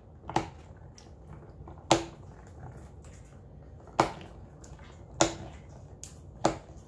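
Hand-cranked plastic tomato strainer being turned, giving five sharp clacks spaced about one and a half seconds apart as tomatoes are pressed through.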